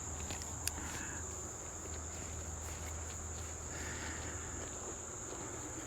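Insects chirring in a steady high-pitched drone, with a single light click a little under a second in and faint soft rustles.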